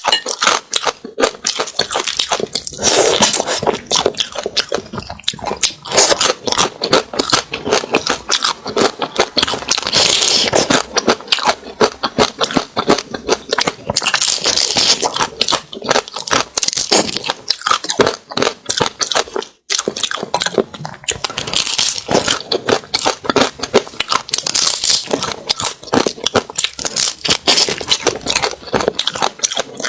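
Close-miked crunching and chewing of crab, dense crackly bites one after another. There is a brief pause about two-thirds of the way through.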